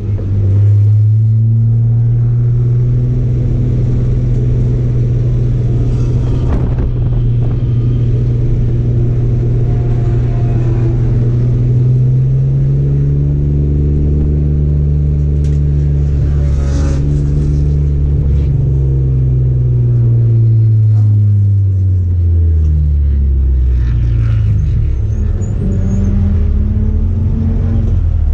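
Race car engine heard from inside the cockpit, running hard on track, its pitch climbing and falling as the car speeds up and slows for corners.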